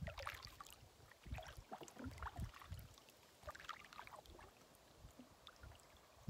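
Faint strokes of a double-bladed paddle dipping into calm lake water beside a canoe, with small splashes and drips off the blades about every second.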